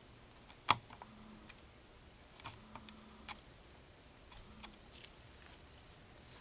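Scattered light clicks and taps of hands working on a bench, with one sharp click just under a second in and a few smaller ones after.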